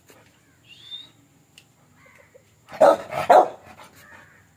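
Rottweiler barking twice in quick succession, two loud, short barks about half a second apart.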